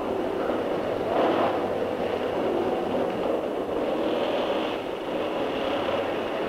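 Factory din of an aircraft assembly line: a dense, steady mechanical rumble that swells briefly about a second in.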